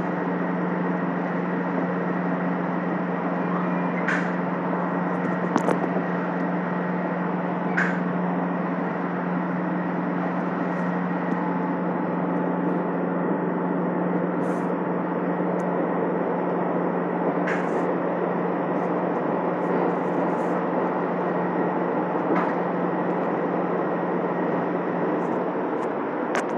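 Subway car interior noise: a steady rumble with a constant low hum and a faint higher whine, with a few short sharp clicks scattered through. The hum drops away near the end.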